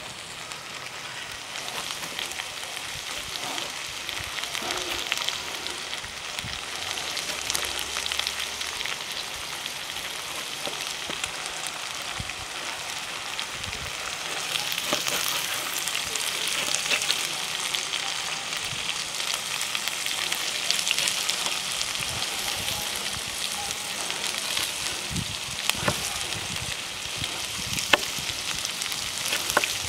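Food frying in a pan, sizzling steadily, with a few sharp knife taps on a plastic cutting board as tomatoes are diced.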